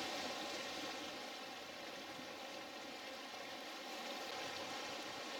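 Steady rushing outdoor ambience: an even hiss with no distinct events.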